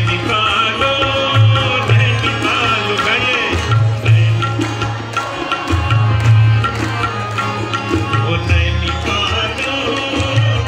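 Loud live devotional music over a sound system: tabla with heavy booming bass strokes under sustained melodic instrument lines, with no singing.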